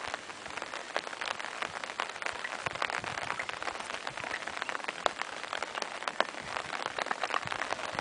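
Steady, dense pattering of many small irregular ticks.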